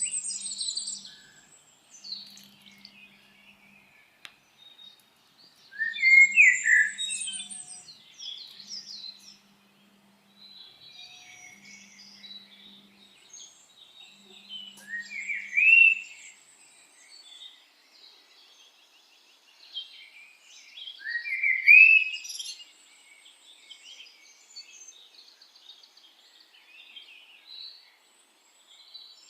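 Several birds chirping and singing at once, with a loud rising song phrase that comes back every seven to nine seconds. A faint low hum comes and goes during the first half.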